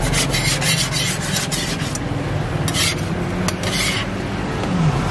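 Metal spatula scraping across a hot iron crepe griddle in quick strokes, about five or six a second, thinning to a few separate scrapes about halfway through.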